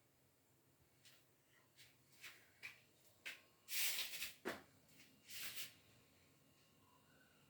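A cat pawing and scratching at something in a floor drain: a string of short scrapes and rustles, the loudest about four seconds in and again near five and a half seconds.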